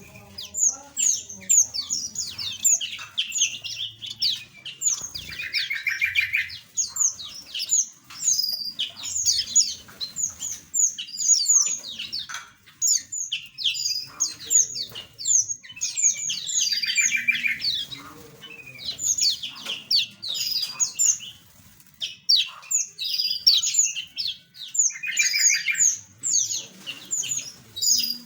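A flock of small aviary birds chirping and singing without a break, many quick high notes overlapping, with a buzzy trill standing out three times.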